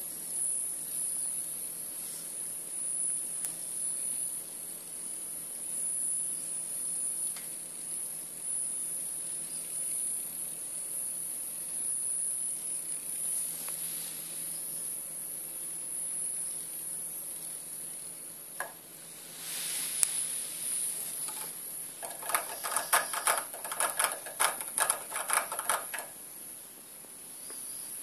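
Small battery-powered toy ladybug buzzing with a steady high-pitched whine as it crawls over floor tiles. About three-quarters of the way through it breaks into a few seconds of rapid rattling ticks.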